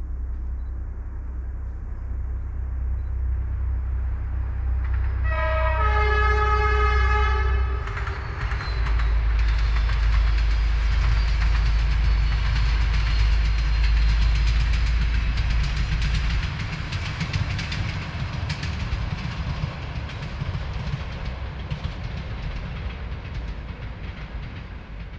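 SU46 diesel locomotive hauling a passenger train, its engine running with a heavy low rumble as it approaches and passes. One horn blast about five and a half seconds in, lasting about two seconds. After that, wheels clatter steadily on the track, fading near the end.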